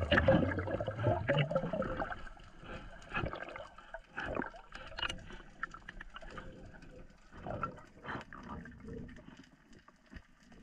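Underwater water noise picked up by a GoPro below the surface: a loud gurgling rush of water in the first two seconds, then quieter gurgles with scattered short clicks.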